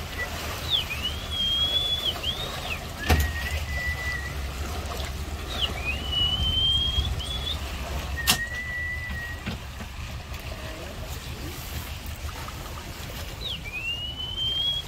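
A person whistling a repeated call to lure monkeys: a level whistled note alternating with a higher note that slides upward, several times over. A low steady rumble runs underneath, and two sharp knocks come about three and eight seconds in.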